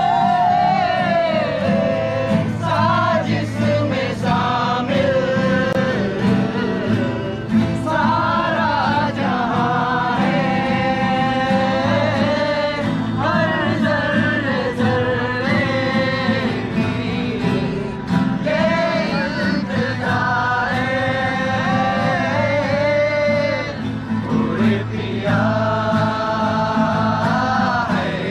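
Male voices singing a Bollywood song together in phrases, to several strummed acoustic guitars.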